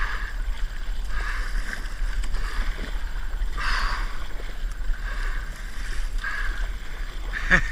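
Wind rumbling on the microphone, with water sloshing around a kayak; the water noise swells briefly about four seconds in.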